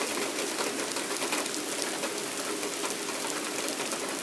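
Rain falling steadily during a thunderstorm, with many separate drops striking close by. A faint steady hum sits underneath.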